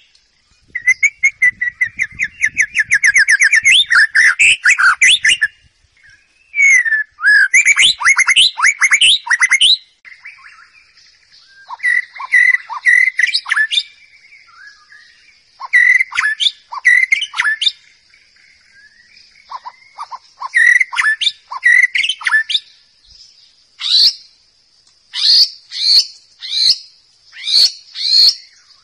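White-rumped shama (murai batu) singing: loud, varied whistled phrases, a long run of fast trills in the first few seconds, then shorter phrases of sharp notes with pauses between them. A steady high insect drone sits behind the song from about ten seconds in.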